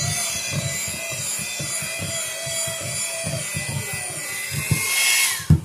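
Electric hand mixer running, its beaters churning thick cream cheese filling in a bowl with a rhythmic low knocking. The motor winds down in pitch and stops near the end, followed by a thump.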